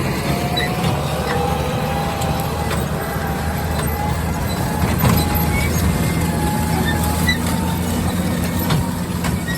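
A vehicle engine running steadily, with a thin, slightly wavering whine above its hum.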